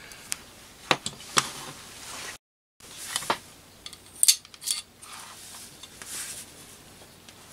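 Small metal parts of an infrared floodlight being handled: its steel mounting bracket and a stainless steel bolt clicking and clinking against each other in several sharp separate knocks, with some soft rubbing between them.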